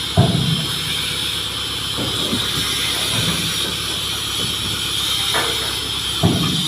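Hydra mobile crane's engine running steadily, with a constant high hiss over a low rumble and a few knocks, the loudest just after the start.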